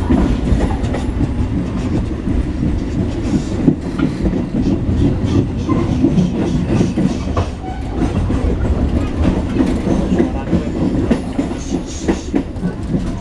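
Ride inside a moving passenger train carriage: the steady low rumble of the running train, with wheels clicking over rail joints.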